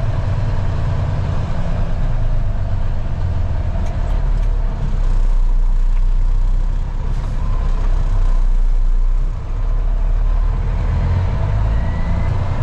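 Freightliner dump truck's diesel engine running, heard from inside the cab as a steady low rumble. It gets louder for about four seconds midway, then dips briefly.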